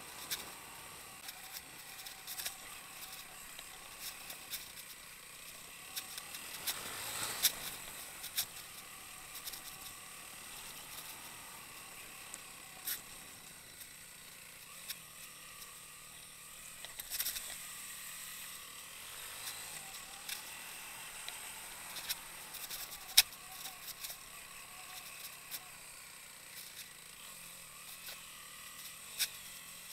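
Dual-sport motorcycle engine running at low speed along a rough dirt track, with frequent sharp knocks and rattles as the bike goes over bumps; the loudest knock comes about two-thirds of the way through.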